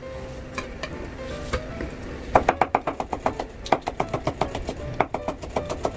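Kitchen knife slicing fresh ginger into thin strips on a cutting board: a few scattered cuts, then from about two seconds in a quick, even run of several knife strokes a second. Background music plays underneath.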